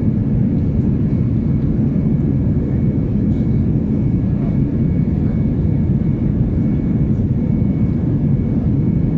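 Steady cabin noise of an Airbus A320 in flight, heard inside the cabin at a window seat: an even, deep rumble of the engines and airflow, with faint steady whining tones above it.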